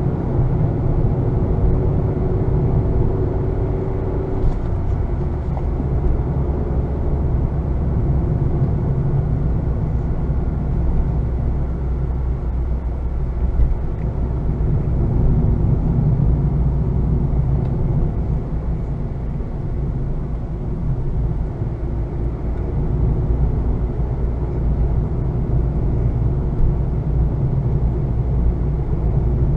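2020 Honda Fit's 1.5-litre four-cylinder engine running while the car is under way, over steady road and tyre noise. The engine note drops in pitch about four and a half seconds in.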